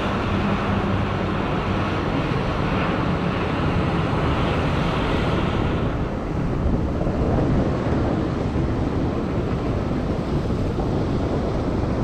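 Ocean surf breaking and washing over a rocky shore ledge in a steady rush, with wind buffeting the microphone.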